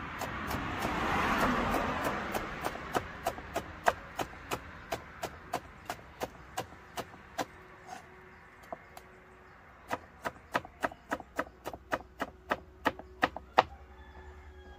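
Kitchen knife chopping a green sweet pepper on a plastic cutting board: a steady run of sharp knocks, about three a second, with a short pause around the middle. A rushing noise swells and fades over the first few seconds.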